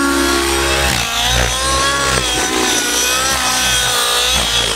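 O.S. 105 two-stroke nitro engine with a Powerboost tuned pipe, running at high power in a Velocity 90 RC helicopter in flight. Its pitch keeps wavering up and down as the load changes. The pilot says the engine is still running a little rich.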